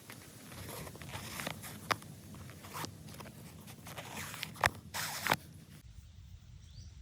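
Scattered rustling and crunching with a few sharp snaps, one about two seconds in and two more near five seconds; the sound then drops off suddenly about six seconds in.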